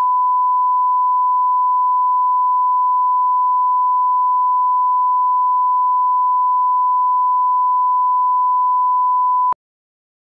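Steady 1 kHz line-up test tone, the reference tone that goes with colour bars, held at one constant pitch and level; it cuts off suddenly near the end.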